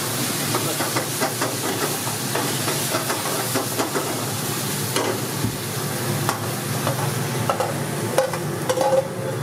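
Paneer crispy sizzling in a hot iron wok while a steel ladle stirs and scrapes it, with repeated metal clinks of ladle on pan. There are a few louder clanks near the end.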